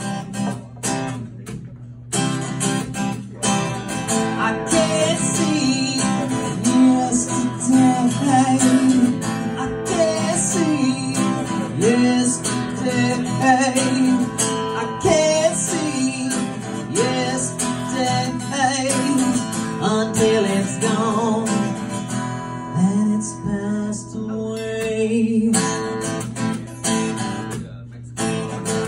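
Acoustic guitar strummed with a man singing over it, a live solo song. The voice drops out near the end while the guitar keeps playing.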